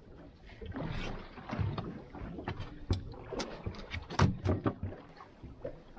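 Irregular knocks and thumps on a small boat's fibreglass deck as a freshly landed snapper is handled and unhooked, over steady wind and water noise.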